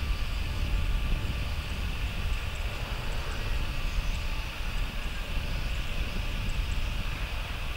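Airbus A320-216 with CFM56 engines landing, heard from a distance: a steady jet rumble and hiss at low thrust through flare and touchdown, with no separate thump at the wheels meeting the runway.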